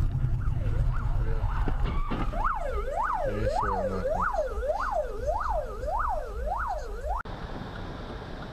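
Emergency vehicle siren in a fast rising-and-falling yelp, about one and a half cycles a second, over steady engine and road rumble. It cuts off abruptly about seven seconds in, leaving only road noise.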